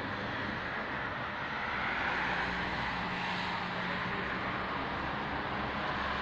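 Road traffic noise: a steady wash of passing vehicles that swells a little about two seconds in, with a low hum underneath.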